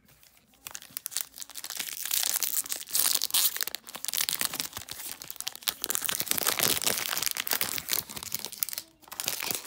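Foil wrapper of a Magic: The Gathering Kaldheim set booster pack crinkling and tearing as it is handled and pulled open by hand. It is a dense run of crackles that starts about half a second in and breaks off briefly near the end.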